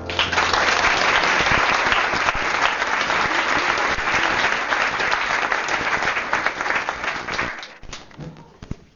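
Audience applauding a stage musical number: dense clapping that starts as the song ends, holds steady, then dies away about seven and a half seconds in.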